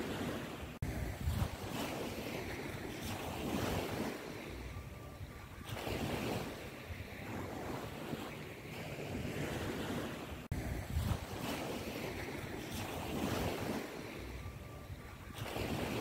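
Liquid bubbling and sizzling in a wok of fried garlic and chili oil as it comes to a simmer, a rushing noise that swells and eases every few seconds.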